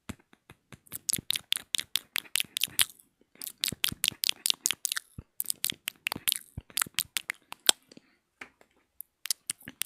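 ASMR mouth sounds: wet tongue and lip clicks made close to the microphone, in quick runs of crisp clicks separated by short pauses.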